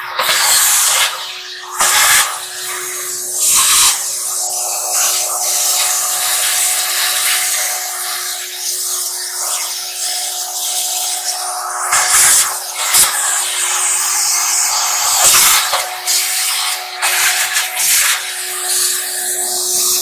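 Wet/dry shop vacuum running: a steady motor hum under a loud rush of air, the rush swelling and dropping several times as the hose nozzle is worked over debris inside the dryer cabinet.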